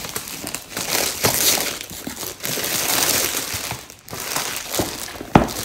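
Packaging crinkling and rustling as a diamond-painting kit is handled and unwrapped, with small clicks throughout and one sharp tap about five seconds in.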